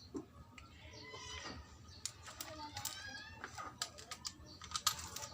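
A cat meowing a few times, mixed with sharp light clicks and taps of small hard objects being handled.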